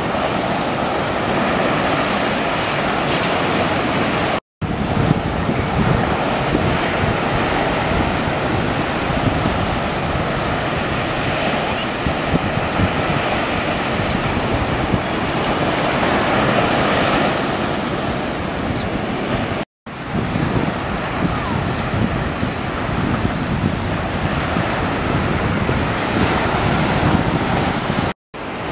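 Ocean surf breaking and washing up a sandy beach in a continuous rush, with wind buffeting the microphone. The sound drops out abruptly three times for a split second.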